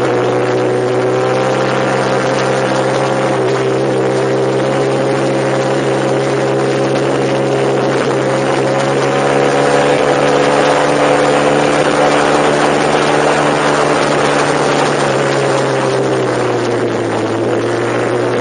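A vehicle engine running steadily while driving, with road and wind noise; the engine note rises slightly about halfway through and eases back down near the end.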